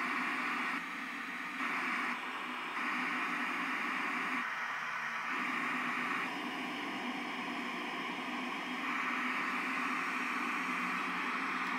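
FM radio static from a Mazda cassette car stereo tuned to 87.9 with no station, a steady hiss. Its tone and level shift in steps several times as the stereo's tone knobs are turned.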